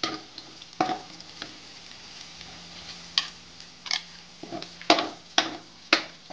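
Minced garlic sizzling in hot oil in a metal wok, with a metal spatula scraping and clacking against the wok about seven times. Chopped red onion is tipped in from a bowl about halfway through.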